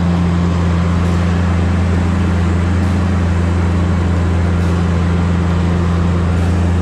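Tigercat 718E wheeled feller buncher's diesel engine running at a steady drone while the machine drives through deep floodwater, with a steady wash of noise over it.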